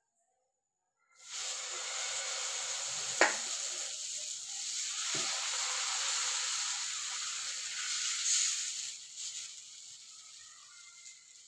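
Dosa batter sizzling on a hot tawa as it is poured and spread with a ladle; the sizzle starts suddenly about a second in and dies down near the end. One sharp knock stands out about three seconds in.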